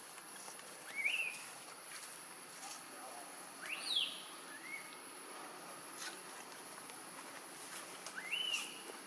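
Baby long-tailed macaque crying: four short, high squealing cries, each rising then falling in pitch. One comes about a second in, two close together around four seconds, and one near the end.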